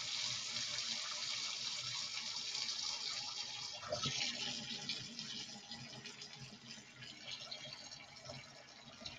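Kitchen faucet running a steady stream of hot water into a stainless steel sink. About four seconds in, the stream is swung onto a sodden fleece of wool, and the rush drops to a quieter, softer splashing as the sink fills.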